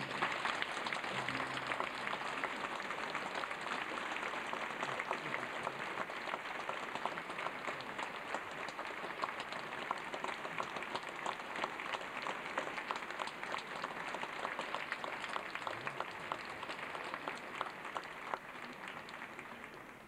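Theatre audience applauding, a dense steady clapping that begins suddenly and dies away near the end.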